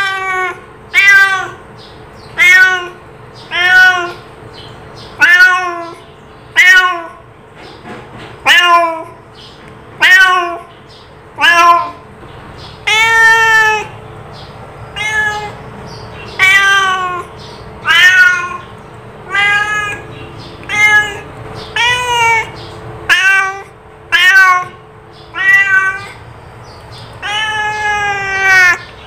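A cat meowing over and over, roughly one meow every second or so, each meow rising and then falling in pitch. A few meows about halfway through and near the end are longer and drawn out.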